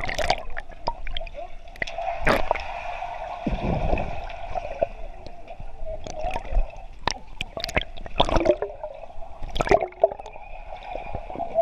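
Water gurgling and sloshing around a GoPro camera as it dips in and out of a swimming pool, heard muffled through the camera's housing, with irregular splashes and knocks.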